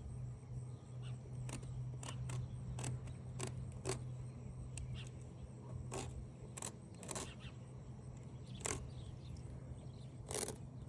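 Irregular light clicks and knocks of small metal hardware being handled, over a steady low hum.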